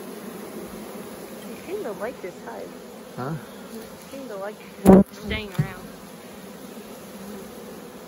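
Honeybee swarm buzzing steadily, a massed hum with a few louder buzzes rising and falling over it. A single sharp knock about five seconds in is the loudest sound.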